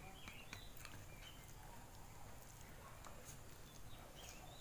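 Faint eating sounds of someone eating rice with their fingers: scattered wet clicks of chewing and lip smacks. Short high chirps come and go behind them.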